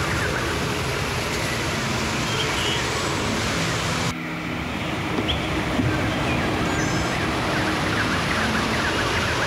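Steady rushing roar of a waterfall, a little softer from about four seconds in, with a few faint bird chirps near the end.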